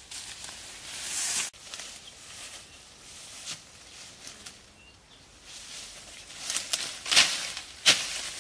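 Rustling of tall grass and leaves as someone moves through them, with a louder rustling swell that stops abruptly about a second and a half in. From about six and a half seconds in come several sharp swishing strokes, the loudest two near the end: a blade slashing through grass and brush.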